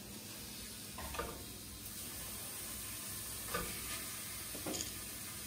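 Food sizzling in a frying pan on a gas stove: a steady, faint frying hiss, with a few brief faint sounds over it.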